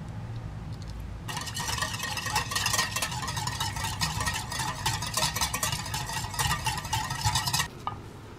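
Metal balloon whisk beating an egg yolk into strained Thai tea milk in a ceramic bowl: a rapid clatter of wires against the bowl that starts about a second in and stops near the end, over a low hum.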